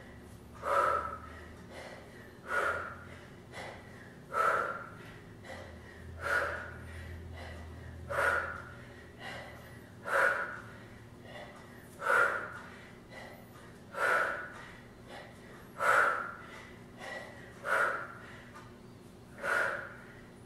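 A woman's forceful breaths out, one short sharp exhale about every two seconds. Each is timed to a rep of an in-and-out V-up ab exercise done with exertion.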